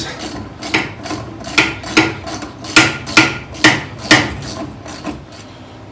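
Hand ratchet clicking in steady, even strokes, about two to three clicks a second, as it spins a freshly lubricated shock absorber nut off a car's front suspension. The clicks fade away in the last second.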